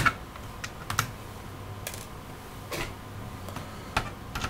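A few light, sharp clicks and taps, roughly one a second, from small screws being picked out and handled against a laptop's plastic base and motherboard during disassembly.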